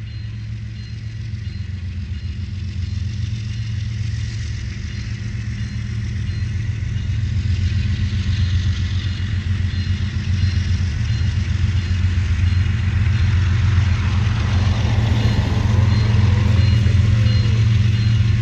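Diesel locomotives of an approaching intermodal freight train: a low engine rumble growing steadily louder. A car drives past in the last few seconds.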